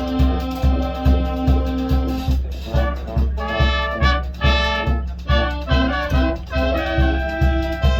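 Marching band playing: brass chords over a steady low beat of about two pulses a second. The chords are held at first, then give way to short repeated brass hits past the middle.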